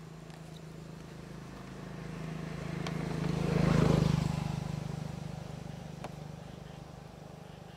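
A motor vehicle driving past: its engine hum grows louder to a peak about four seconds in, then fades away.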